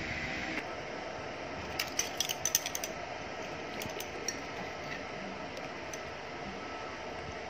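A quick run of light clicks and clinks about two seconds in, with a few more a second later, from small kitchen items being handled, over a steady background hum.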